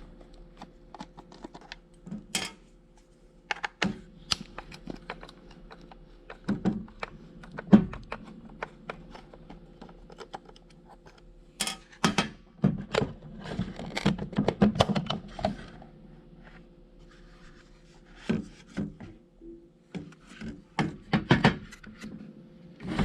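Irregular clicks, taps and scrapes of hands taking apart a plastic HVAC control panel, with a busier run of handling in the middle.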